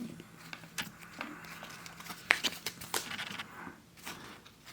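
Baseball trading cards handled and flipped through by hand: soft scrapes and scattered light clicks of card against card.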